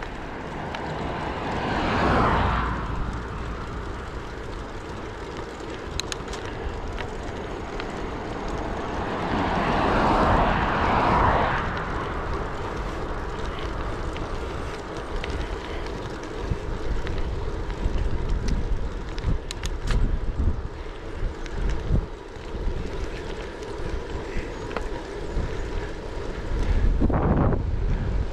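Motor vehicles passing a cyclist on a road, each swelling up and fading: one about two seconds in, a louder one around ten seconds, and another near the end, over a steady rush of wind and road noise from the moving bicycle.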